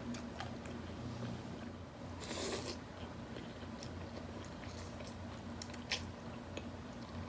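A person eating close to the microphone: bites and chewing with scattered small mouth clicks. A short louder rush of noise comes about two seconds in, and a single sharp click near the six-second mark.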